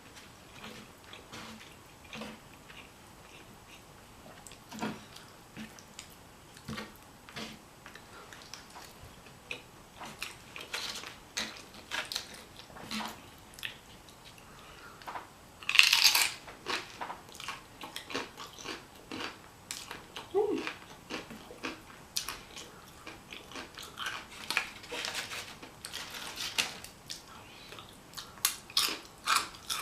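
Close-miked chewing of food: many short, irregular mouth clicks and crunches, with one louder brief noise about halfway through.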